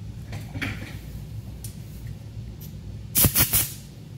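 Handling noise on a workbench: a few faint taps, then a quick cluster of about three sharp knocks about three seconds in, over a steady low hum.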